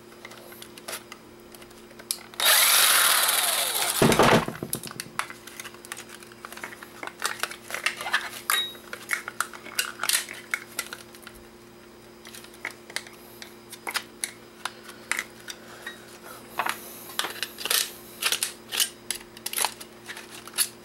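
A cordless impact driver runs for a little under two seconds, backing a small screw out of a camcorder's plastic housing, and ends with a knock. After that come many small clicks and rattles of plastic parts and screws being handled and pried apart by hand.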